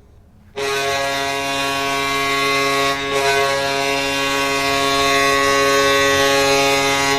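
Toronto Maple Leafs goal horn sounding one long steady blast, starting about half a second in.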